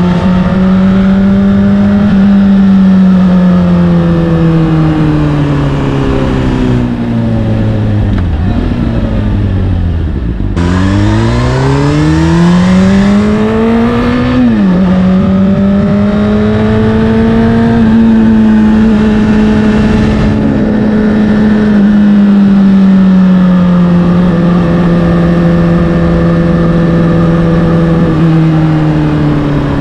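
Honda CBR600RR's inline-four through an Akrapovic exhaust, under way. The engine note falls steadily for about ten seconds as the bike slows, then climbs quickly as the rider opens the throttle. About halfway through, an upshift drops the pitch abruptly; the note then holds steady and eases lower near the end.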